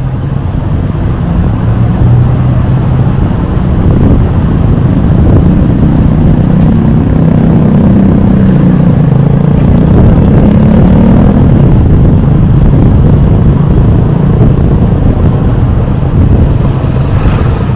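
Motor vehicle engine running steadily on the move, over a constant low rumbling road noise; the engine note climbs and falls back around the middle.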